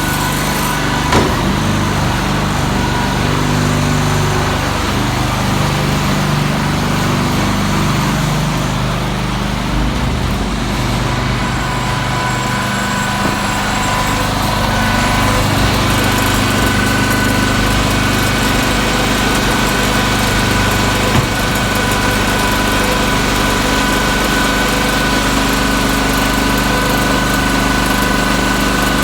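Engines of concrete-pour equipment running steadily, with a couple of single knocks.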